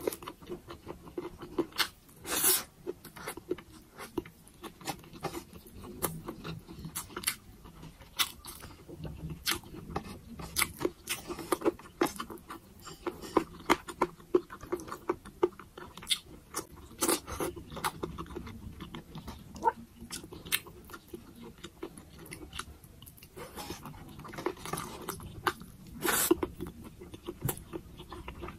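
Close-miked chewing of pork adobo and rice: a dense run of wet, sticky mouth clicks and smacks, with two louder bursts about two seconds in and near the end.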